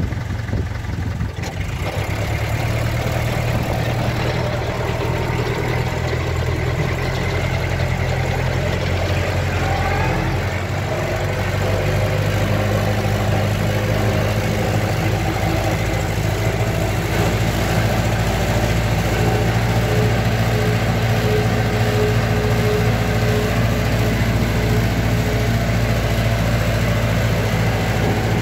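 Old tractor's engine running steadily while the tractor drives along the road, a low, even drone. Its note changes about eleven seconds in.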